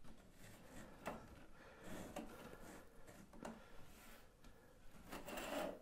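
Faint handling sounds of a steel ruler being pressed and shifted along model railroad flex track: a few light clicks and a short scraping rub near the end.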